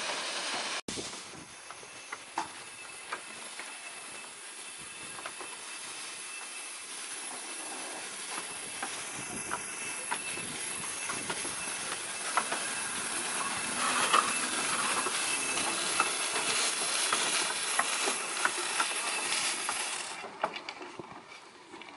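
Small coal-fired 0-6-2 steam tank locomotive running slowly, with a steady hiss of steam and scattered clicks and clanks from its wheels and motion on the track. The sound grows louder as it approaches and drops away near the end.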